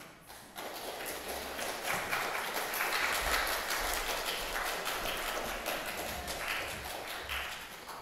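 Audience applauding, a dense crackle of many hands clapping that starts about half a second in and fades near the end.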